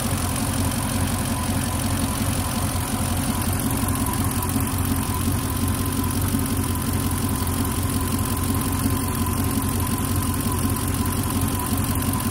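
MasterCraft MCX 350 V8 inboard engine running steadily at idle, warmed past 160°F with the thermostat open, while it draws flushing water from a bucket through its cooling intake.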